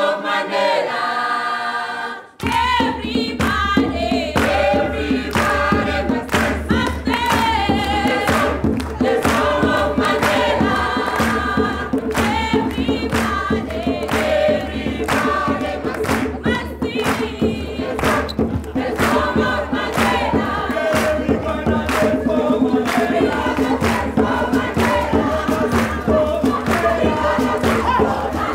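A youth choir singing together in full voice, backed by a steady beat of sharp hand-drum strokes. The sound drops out briefly about two seconds in, then carries on.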